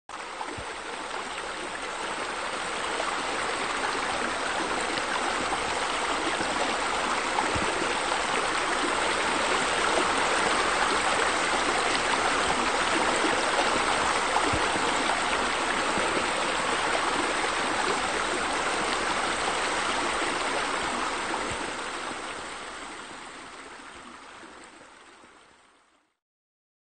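Steady rush of running water, like a small waterfall or spillover. It fades in over the first few seconds and fades out over the last five seconds to silence.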